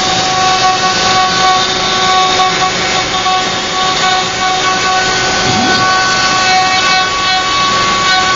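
Joe's Hybrid 4x4 CNC router carving wood: the spindle runs with a steady high whine over a continuous cutting noise as the bit moves through the carving.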